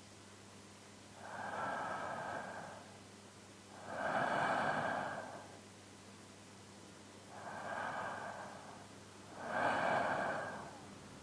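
A man's slow, deep sleep breathing, close to a binaural microphone: four long, airy breaths, every other one louder.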